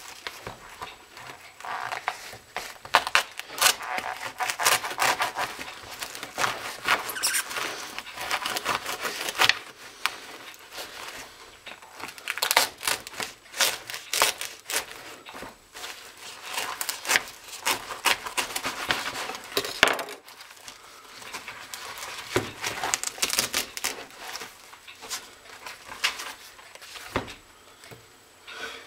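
A shredded Nike LeBron high-top sneaker being handled and pulled at, its torn upper and mesh making scratchy rustling in irregular bursts with short pauses.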